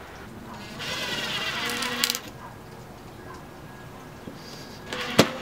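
Power drill driving a screw up through the plywood floor into the wooden side wall. It runs for about a second and a half, rising in pitch as it starts and stopping with a click. A single sharp knock comes near the end.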